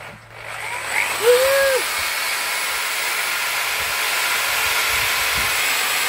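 Corded electric drill driving a blender jar's blades as a makeshift blender motor, blending soup. It spins up over the first second or so and then runs steadily.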